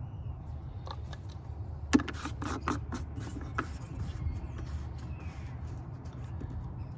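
Hands working in a car's engine bay: a run of sharp clicks and scraping as parts are refitted after the coolant level sensor change. A steady low rumble runs underneath.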